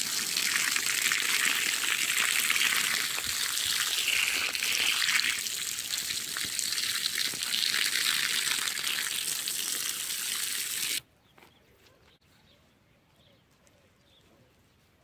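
Water running steadily in a loud hiss, which stops abruptly about eleven seconds in. After that there is near silence with a few faint high chirps.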